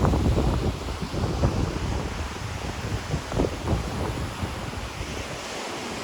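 Ocean waves washing onto the shore, with wind buffeting the microphone in gusty low rumbles that are strongest in the first couple of seconds and ease toward the end.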